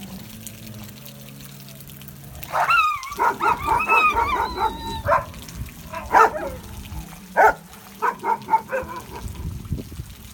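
Several dogs barking and yelping in a small scrap among the pack: a run of high, wavering yelps about two and a half seconds in, then single sharp barks and a quick string of barks near the end.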